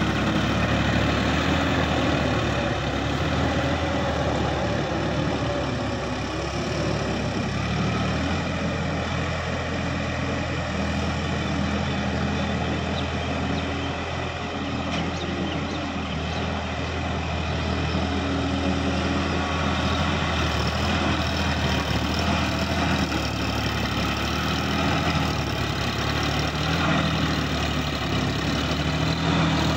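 Sonalika DI-50 RX tractor's diesel engine running steadily under load as it pulls a rotary tiller through flooded, muddy ground, with the tiller churning mud and water.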